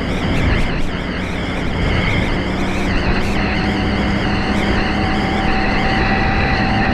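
Engine of a moving vehicle running steadily under way, with a steady hum that comes in a couple of seconds in.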